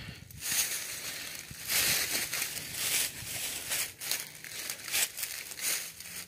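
Footsteps crunching through dry fallen leaves, a step every half second or so, unevenly spaced.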